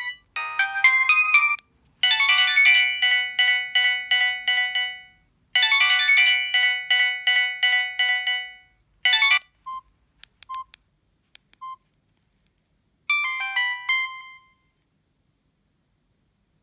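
Samsung GT-E1170 mobile phone playing short electronic ringtone melodies one after another, each lasting one to three seconds with brief gaps between them. A few short single beeps fall near the middle.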